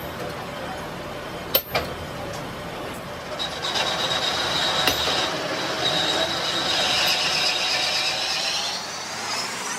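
Metalworking machinery: a couple of sharp metallic clicks, then from about three seconds in a high-pitched squeal that wavers and climbs higher near the end, typical of a cutting or grinding tool working on steel.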